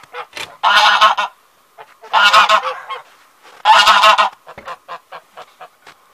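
Domestic geese honking: three loud, harsh honks of about half a second each, roughly a second and a half apart, with faint short crackles between them.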